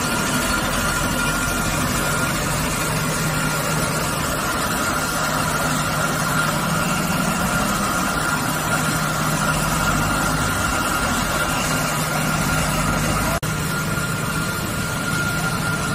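Dazzini PD1500 diamond wire saw running steadily as its wire cuts through a block of Carrara white marble, a constant machine hum with a high steady whine. There is a momentary dropout about thirteen seconds in.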